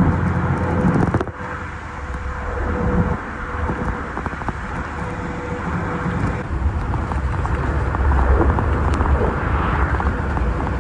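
Steady low engine rumble and wind noise from a moving vehicle, with abrupt changes about a second in and about six seconds in.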